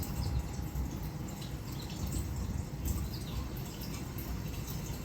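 A few faint, short bird chirps from a bird video playing on a TV, over a steady low rumble of room noise.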